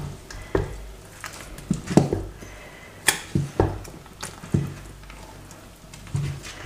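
Wooden spatula stirring slimy ogbono soup with chopped okra in a stainless steel pot, with a few irregular knocks and scrapes of the spatula against the pot.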